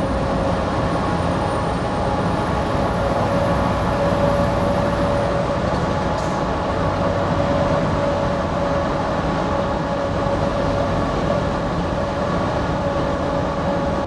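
Scania truck's tyres and engine running steadily through a road tunnel, a continuous roar with a steady mid-pitched hum, echoing off the tunnel walls.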